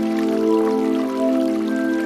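Slow ambient relaxation music of long held, softly shifting chords, with flowing water trickling faintly beneath it.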